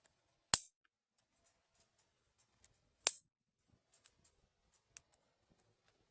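Campfire crackling: two sharp pops about two and a half seconds apart, with faint crackles of burning wood between them.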